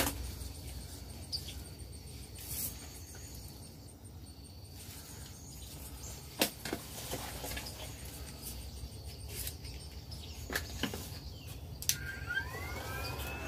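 Plastic parts of a forced-air respirator being handled, with a few sharp clicks as the hose and filter are fitted to the blower unit. Near the end the blower's small electric motor switches on and spins up into a steady high whine.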